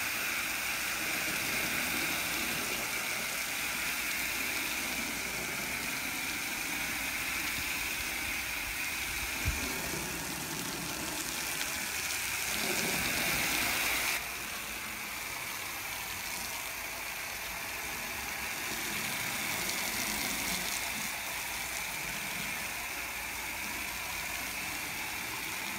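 Chemical Guys Torq Foam Blaster 6 garden-hose foam gun spraying a steady hissing jet of soapy water and foam against vehicle siding, with a short knock about nine seconds in.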